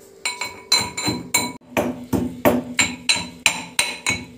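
Pestle pounding roasted black sesame seeds in a mortar: a steady run of ringing strikes, about three a second.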